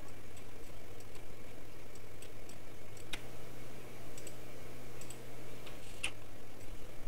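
Computer mouse clicking: a scattered series of light clicks, two of them louder at about three and six seconds in, over a low steady hum.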